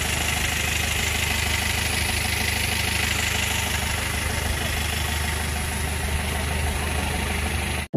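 A vehicle engine idling steadily at the roadside, with an even low hum, until it cuts off abruptly just before the end.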